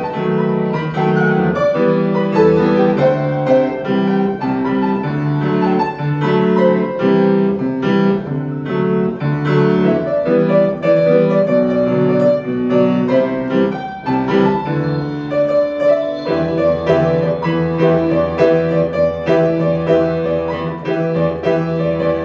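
Samick grand piano being played, a busy run of many notes in both low and middle registers, with a brief lull about fourteen seconds in before the playing goes on.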